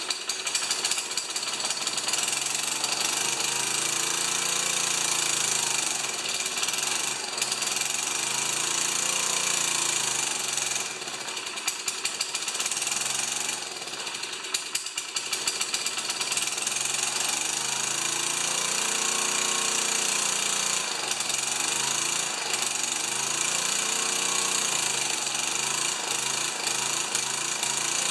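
Small Tecumseh vertical-shaft four-stroke engine on a pressure washer, running just after a hard start. Its pitch wavers up and down, and it dips in loudness for a few seconds near the middle.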